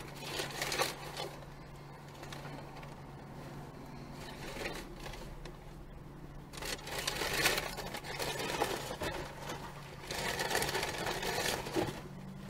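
Traffic passing close by, heard from inside a car that is stopped with its engine idling. The idle is a steady low hum, and three vehicles swell up and fade as they go by: one right at the start, a louder one about seven seconds in, and another around ten to twelve seconds in.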